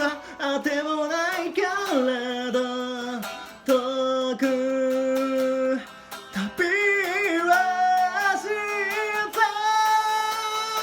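One voice singing while strumming a guitar, holding several long notes between short breaks.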